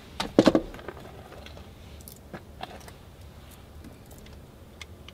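Small metal hardware and hand tools being handled: a quick clatter of sharp clicks near the start, then a few scattered light ticks.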